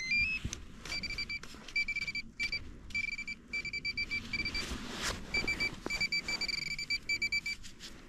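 Metal detector giving a high electronic tone in rapid beeps, opening with a short rising run of tones: it is sounding on a target in the soil, which turns out to be a coin. Scattered knocks and scrapes sound between the beeps.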